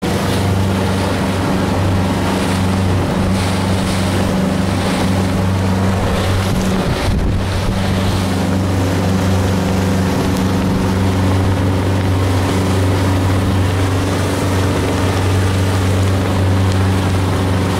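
Boat engine running at a steady low drone, with wind buffeting the microphone and water rushing past the hull.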